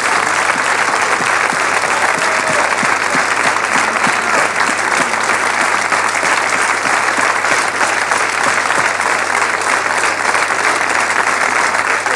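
Studio audience giving a standing ovation: sustained, steady applause of many clapping hands.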